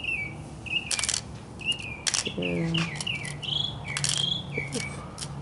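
A bird chirps repeatedly in short notes that slide in pitch, while sharp clicks and clinks come from the kit's steel nuts and bolts being handled in a plastic container, about four in all.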